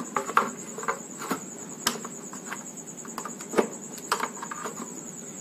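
Scattered light clicks and taps of small mixer grinder parts being handled while rubber bushes are fitted to the motor mount, over a steady high-pitched tone.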